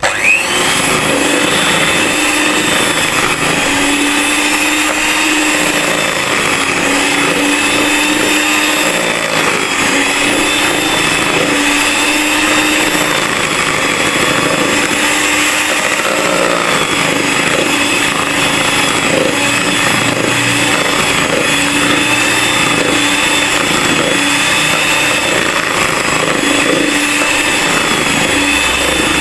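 Miyako electric hand mixer switched on, starting with a brief rising whine and then running steadily, its twin beaters whisking a creamed butter, sugar and egg yolk batter in a plastic bowl.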